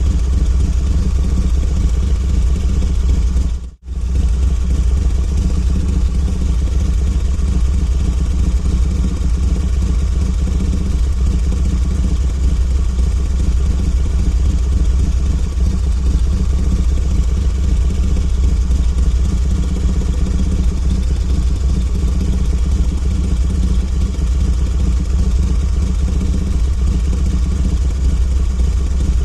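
Harley-Davidson V-twin motorcycle engine idling steadily, with a deep, even low-end rumble. It cuts out for a split second just under four seconds in.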